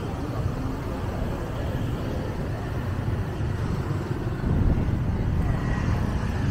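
City street traffic: motorbikes and cars passing on the road, a steady low rumble that grows louder about four and a half seconds in.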